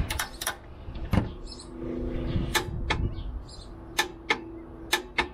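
Sharp metallic clicks, mostly in pairs, from a wrench and socket tightening a differential brace bolt to its 45 foot-pound torque spec. A steady low hum runs underneath from about a second and a half in.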